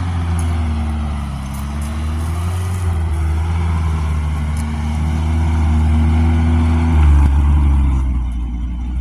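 Stock 22RE four-cylinder engine of a 1987 Toyota pickup running at low revs under load as the truck crawls over rough ground, its note wavering and dropping to a deeper, louder tone about seven seconds in.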